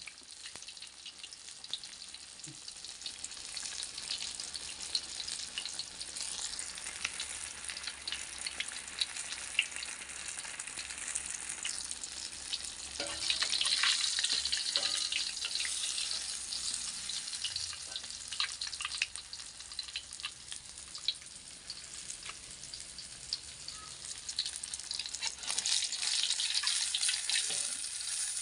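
Fish steaks sizzling and crackling in hot oil in a metal wok, with a spatula moving the pieces. The crackle swells louder about halfway through and again near the end.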